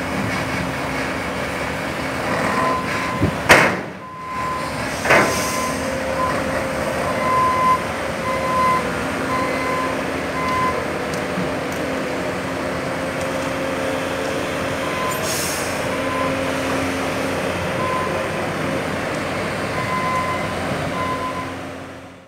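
Three-axle tipper truck's diesel engine running steadily while it dumps a load of earth with the bed raised and creeps forward. There is intermittent beeping through most of it, a few sharp knocks in the first five seconds, and a short hiss about fifteen seconds in.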